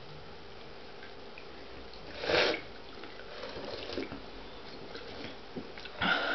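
Diet Coke being drunk from cans: a short loud slurp a little over two seconds in and another just before the end, with faint liquid sounds between.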